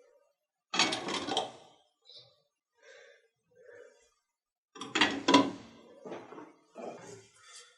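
Workshop handling noises: tools or parts knocked and set down on a hard surface, with two louder clattering bursts, one about a second in and one about five seconds in, and a few small knocks between.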